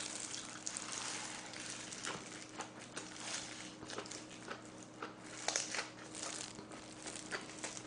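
Close-miked chewing of a lettuce-leaf wrap (ssam) filled with braised pig's trotter: wet mouth sounds with many small, irregular crackles from the leaves.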